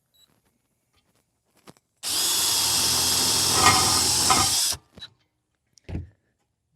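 Power drill with a 7/16 socket driving a self-tapping screw into a fence side channel's pre-drilled hole. It starts about two seconds in, runs for about two and a half seconds, and stops abruptly, followed by a couple of light knocks.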